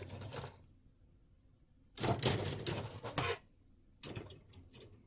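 Plastic model-kit runners rattling and clicking as they are handled and sorted through. There is a short rustle at the start, a longer clatter about two seconds in, then several sharp clicks near the end.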